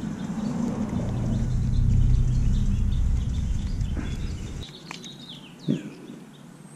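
A low rumble that cuts off about two-thirds of the way through, with a few small metal clicks and a knock as an Allen key turns the timing chain tensioner bolts on a scooter engine. A few faint bird chirps come near the end.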